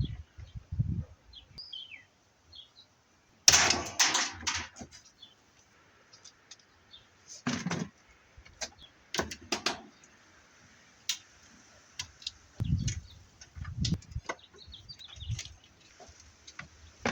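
Metal parts and hand tools knocking and clattering as a washing machine is taken apart for scrap, with the loudest clatter about three and a half seconds in and a few faint squeaks early on.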